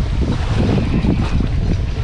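Wind buffeting the microphone in a loud, gusty low rumble, over the wash of surf on a sandy beach.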